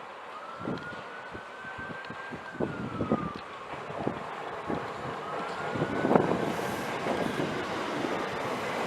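Emergency vehicle siren wailing in the distance: two slow rise-and-fall cycles. Scattered knocks and a growing rumble come from a train drawing near.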